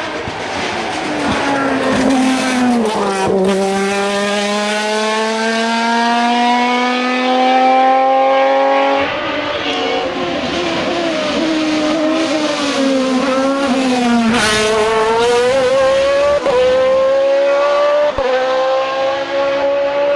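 Hill-climb race car engine at full throttle, its pitch climbing steadily for several seconds and then dropping back as it changes gear, several times over.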